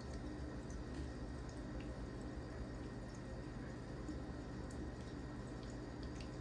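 Faint, irregular clicks of keys and trackpad on a MacBook Air M2, over a steady low background hum.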